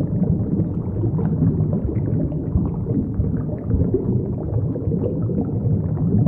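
Water bubbling and churning, a deep, muffled rush of bubbles with small pops scattered through it.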